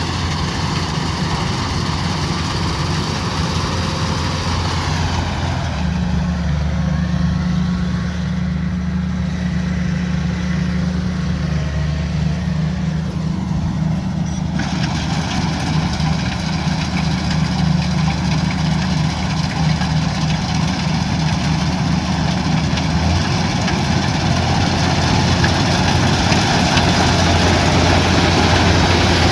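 Kubota DC-105X combine harvester's diesel engine running steadily under load, with a steady low drone and machinery clatter; the engine note shifts about six seconds in and again a few seconds before the end.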